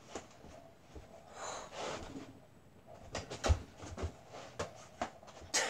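Breathing, then a scatter of knocks and thuds from about three seconds in, the loudest at the very end: a mini basketball bouncing off walls and floor during a trick shot.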